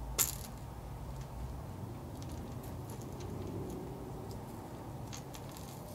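Tape being picked and peeled off the bill of a freshly painted fishing lure by hand: faint small crackles and scratches, with one sharp click just after the start, over a steady low hum.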